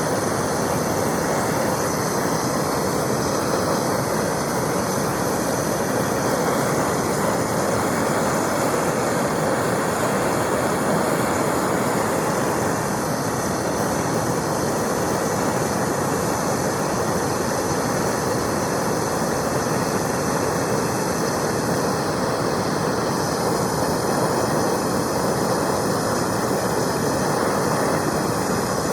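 Handheld gas torch burning with a steady, loud hiss, heating an aluminum boat rivet for brazing with aluminum rod.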